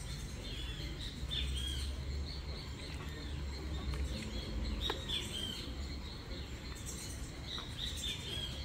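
Birds chirping in a few short clusters of quick calls, over a low steady background rumble.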